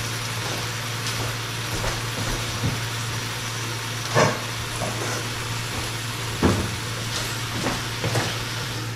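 Butter and olive oil sizzling steadily under sliced onions in a stainless steel pot heating on an electric hob, with a low hum beneath and a couple of faint knocks partway through.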